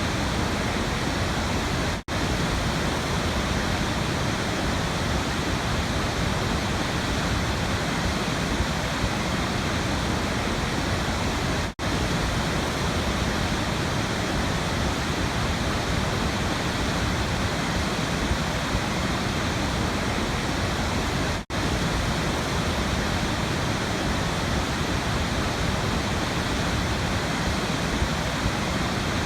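Waterfall rushing, a steady, even wash of falling water, broken by three very short dropouts about ten seconds apart.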